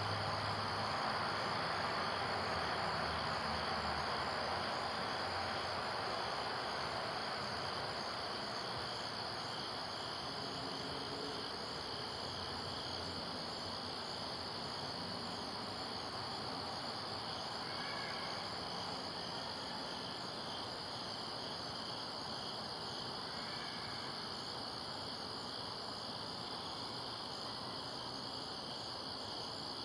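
Crickets chirring in a steady night chorus, a continuous high-pitched drone over faint outdoor hiss.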